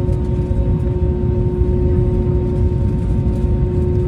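Airbus A321 jet engines running steadily at low power: a low rumble with steady humming tones on top.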